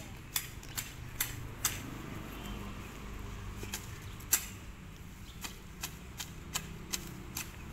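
Sharp chops and scrapes of a small hand sickle striking the soil as it cuts weeds at their roots. They come irregularly, a few a second at first and then further apart, with one louder strike about four seconds in. A low steady hum lies underneath.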